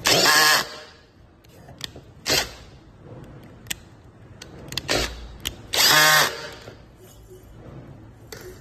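Two short bursts of a power driver working the brake caliper's mounting screws, each about half a second long. The first comes right at the start and the second about six seconds in, with small clicks and taps between them.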